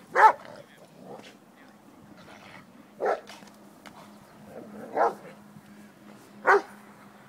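Komondor guard-barking at a man while lunging on its line: four single, loud barks, spaced about one and a half to three seconds apart.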